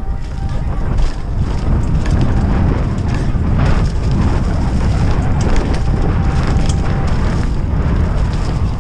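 Wind buffeting the microphone and tyres rumbling over soft dirt as a Brodie Libido freeride mountain bike descends fast, with scattered knocks and rattles from bumps.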